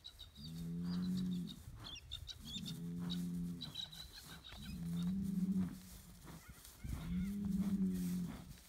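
Hereford bull bellowing: four low moos, each about a second long, coming roughly every two seconds.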